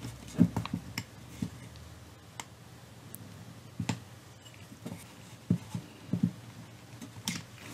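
Light, scattered clicks and scratches, about one a second, as a pointed podger (awl) is pushed through a cloth-covered speaker cover and the cover is handled.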